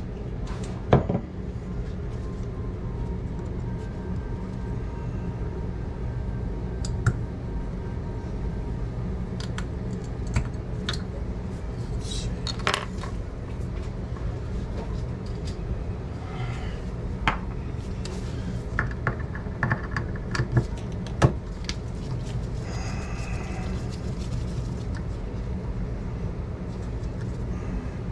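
Scattered clicks and light metallic taps of hand tools and small parts against a two-handle kitchen faucet and stainless-steel sink as the faucet is taken apart, over a steady low hum.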